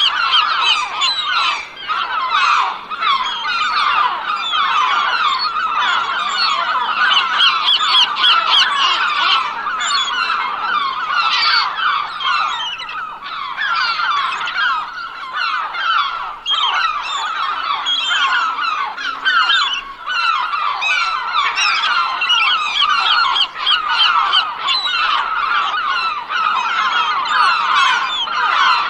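A large flock of seagulls calling all at once, a dense, unbroken chorus of many overlapping cries.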